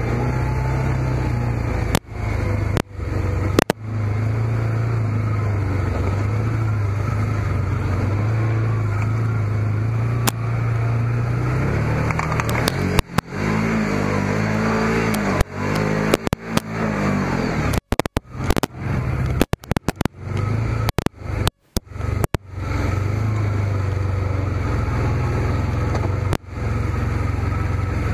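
Can-Am Commander side-by-side's V-twin engine running steadily under way on a snowy dirt track, its revs rising and falling several times around the middle. The sound is broken by many brief gaps.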